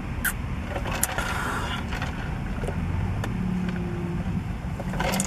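Steady low rumble inside a parked car's cabin, with a few light clicks and rustles of eating and handling a drink cup and foil-wrapped burrito, a small cluster of them near the end.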